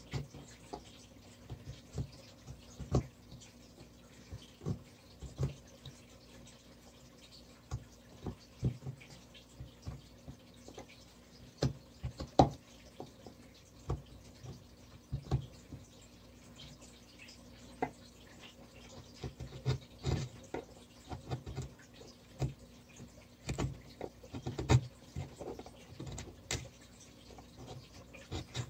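Hand chisel cutting into a wooden board: a string of irregular short crisp clicks and snaps as the blade bites in and slices chips away, some coming in quick clusters.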